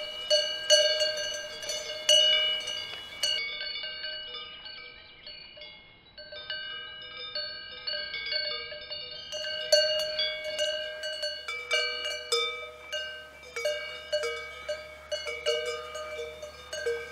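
Cowbells on grazing cows clanking irregularly, several bells at different pitches striking and ringing over one another.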